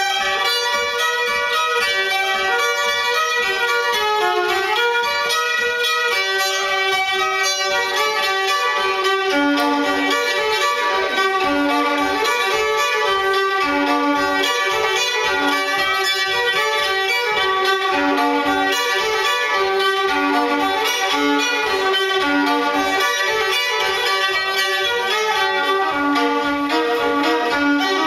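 A 19th-century fiddle played solo, an old tune in quick bowed notes, with a lower note sounding again and again from about a third of the way in.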